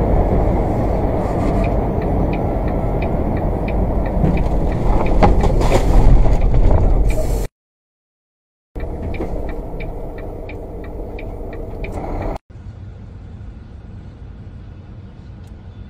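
Road and engine rumble inside a truck cab driving on a highway, loud and steady, with a light ticking about twice a second. It cuts out to silence for about a second partway through and resumes. After that it gives way to a quieter, steady background noise.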